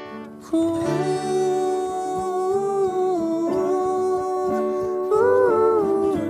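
Acoustic guitar strumming a slow accompaniment while a voice hums a sustained melody over it. The humming comes in about half a second in and lifts to a higher note about five seconds in.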